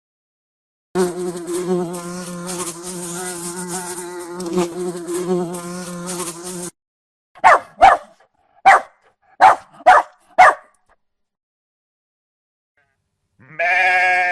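Buzzing of a flying insect for about six seconds, then six short, evenly spaced calls. A sheep starts bleating near the end.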